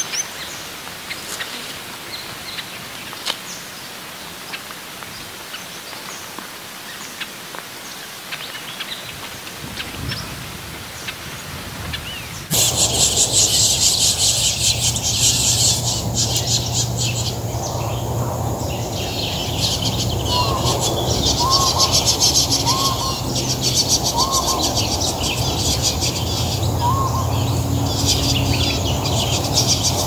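Small birds chirping. Short scattered chirps at first; about twelve seconds in, the sound switches abruptly to a louder, dense high chattering chorus with a low hum beneath it and a few short whistled notes.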